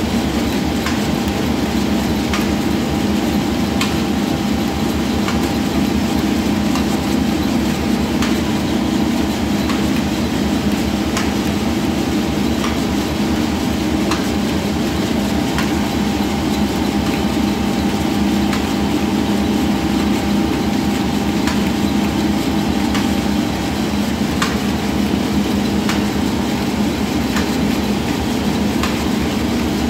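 Commercial electric masala grinding mill running steadily while grinding spice into powder. It makes an even mechanical drone with a faint steady tone above it and scattered light ticks.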